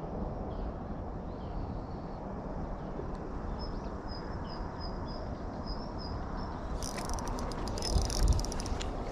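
Riverside ambience with a steady low wind rumble on the microphone. About halfway through, a string of short high chirps repeats. Near the end comes a rapid clatter of sharp clicks with a couple of low bumps.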